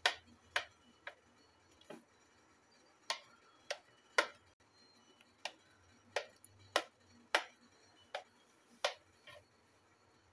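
Kitchen knife cutting down through a soft steamed dhokla, its blade clicking against the plastic plate beneath with each cut: about fourteen short, sharp clicks, unevenly spaced, roughly one every half second to a second.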